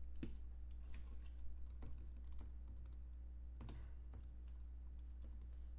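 Computer keyboard being typed on in scattered, irregular keystrokes, with one louder click a little past the middle, over a steady low electrical hum.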